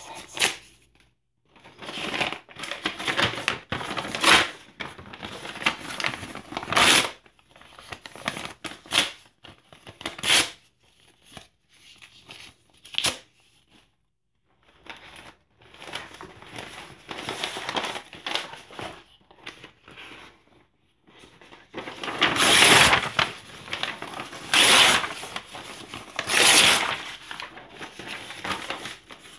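Paper being torn by hand, with irregular rips and rustling as sheets of old documents, receipts and newspaper are handled and sorted. A brief lull comes about midway, and the loudest tears come close together near the end.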